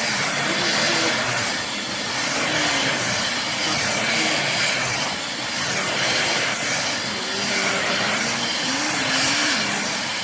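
Corded stick vacuum cleaner running at full suction over a rug, a loud steady rush of air and motor whine that swells and eases every second or two as it is pushed back and forth.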